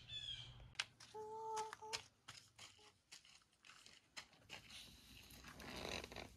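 A bird gives a short call at the very start, a harsh note with several tones that falls slightly in pitch. Then come faint scattered clicks and ticks, with a brief steady hum about a second in and a soft rustle near the end.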